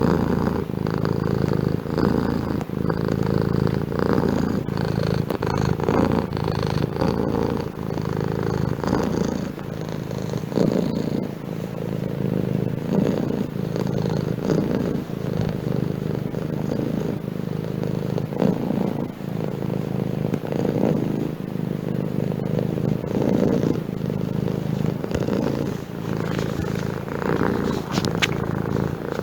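Domestic cat purring continuously, a low rumble that swells and eases every second or two.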